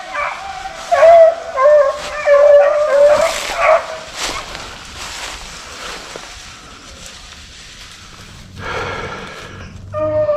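A pack of beagles baying on a rabbit's trail: loud, overlapping hound voices for the first few seconds, then fainter. Near the end comes a short burst of noise, and the baying picks up again.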